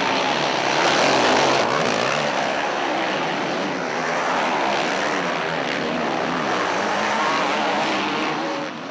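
Motocross bikes racing, several engines revving up and down together.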